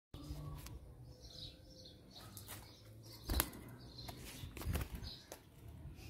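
Budgerigars fluttering their wings in a wire cage: a few short, soft flurries and knocks, the loudest about three and a half seconds in.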